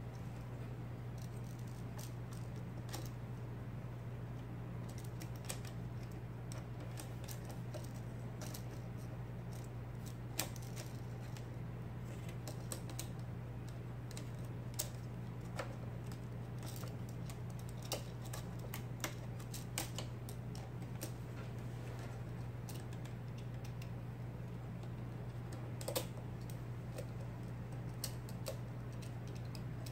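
IBM Selectric typeball electric typewriter being test-typed: irregular key strokes and typeball strikes clicking, a few of them sharper and louder, over a steady low hum of the running machine.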